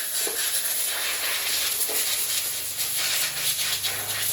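A steady, strong hiss from a pressurised jet, with a faint low hum coming in about a second and a half in.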